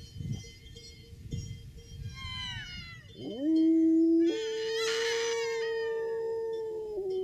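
A dog howling: from about halfway through, its call slides up into a long held note that steps higher and holds for about three seconds. Shrill, falling squeals from a grass blade blown between cupped hands come before the howl and over it.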